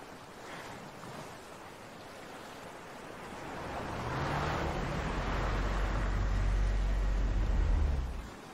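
A car driving up, its low engine and tyre rumble building over several seconds and cutting off suddenly near the end, over faint sea surf.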